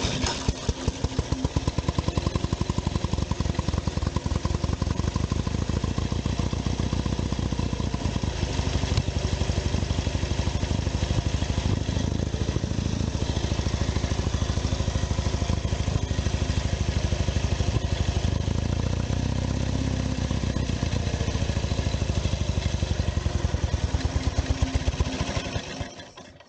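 1920 Douglas W20 flat-tank motorcycle's flat-twin engine running steadily with a rapid, even firing beat, then dying away near the end as it is shut off.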